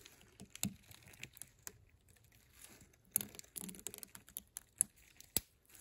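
Faint, irregular small clicks and scrapes of a retaining ring being worked into its groove in the round head of a Wright 3/4-inch ratchet by gloved fingers and fingernails, with a sharper click near the end.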